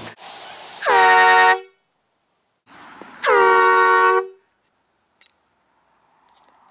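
Air horn blasting twice, each blast about a second long, the first about a second in and the second about three seconds in. Each starts with a short hiss and a brief dip in pitch, then holds a loud, steady tone.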